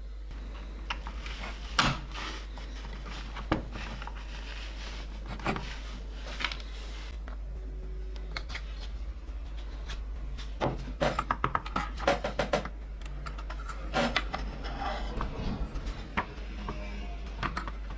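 Irregular light clicks, taps and rubbing from small objects being handled by hand, with a few sharper knocks scattered through.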